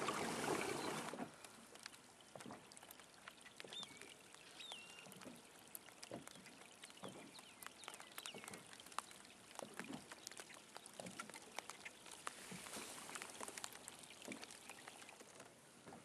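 Wind buffeting the microphone for about the first second, cutting off suddenly; then small water sounds lapping and dripping around a kayak, with many faint irregular ticks and a few faint bird chirps about four seconds in.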